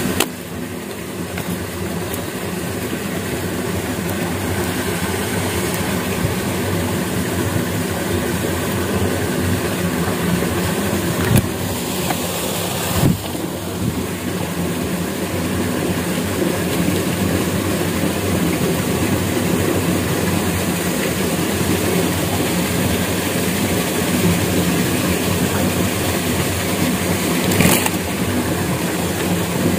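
An engine running steadily, with a few short clicks over it.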